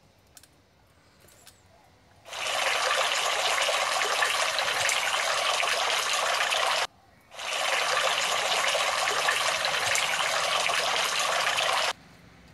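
Water spraying onto burning paper with a rushing hiss, in two long bursts of about four and a half seconds each, with a short break between them; each burst cuts off suddenly.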